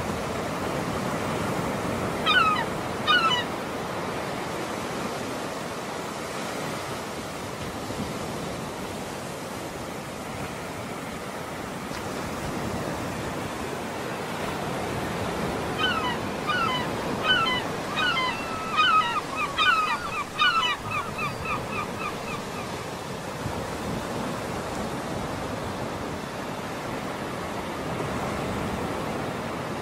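Steady wash of small waves with some wind. Birds call briefly twice, a pair of short calls near the start, then a flurry of quick, overlapping calls past the middle.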